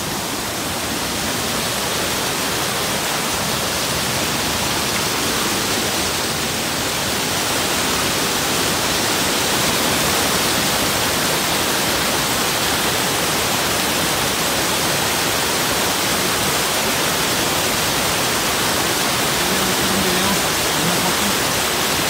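Waterfall in heavy flow, swollen and overflowing, with a steady rush of water pouring over rocks and churning down a boulder-strewn stream bed.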